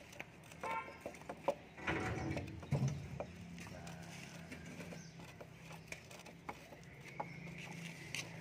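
Metal clicks and clinks of a ring spanner working the mounting bolts of a truck's starter motor loose. About two seconds in a louder rushing noise swells, and a steady low hum sets in about three seconds in.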